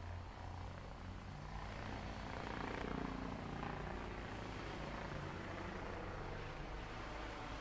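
A heavy vehicle's engine runs with a low, steady drone that swells a couple of seconds in and then settles.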